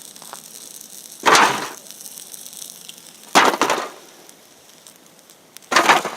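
Three loud bangs about two seconds apart, each dying away within about half a second.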